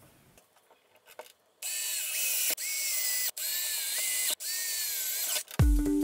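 Cordless drill boring screw holes through a plastic enclosure wall in four short runs, its high motor whine dipping and recovering in pitch as the bit bites. Music comes in near the end.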